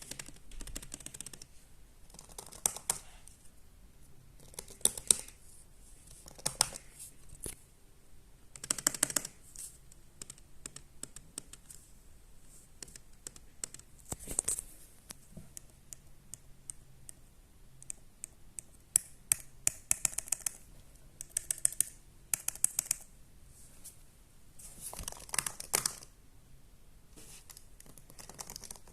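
Typing on a 2018 MacBook Air's butterfly-switch laptop keyboard: quick runs of light key clicks in bursts of a second or two, with short pauses between them.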